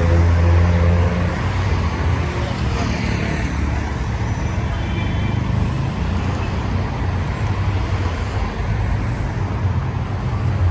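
Busy street traffic: a steady wash of passing cars' engine and tyre noise. A heavy vehicle's low engine hum is loudest at the start and fades out within the first couple of seconds.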